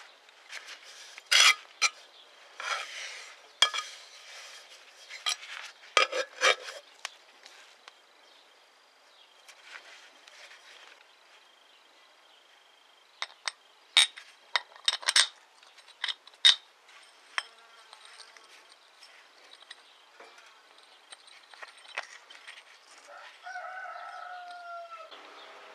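Steel parts of a foot pump (cylinder, piston disc, rod) clinking and knocking against each other and the sheet-metal table as they are handled, in two clusters of sharp clinks. A short squeak near the end.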